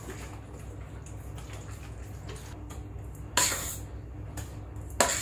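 Whipped cream squirting from a piping bag onto sponge cake layers: two short, wet, hissing squirts, one about three seconds in and one near the end.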